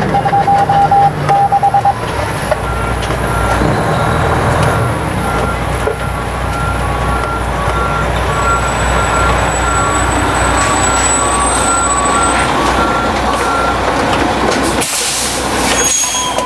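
Fire engine's engine running low while its backup alarm repeats short beeps, alternating high and low, as the truck reverses. The beeping stops near the end.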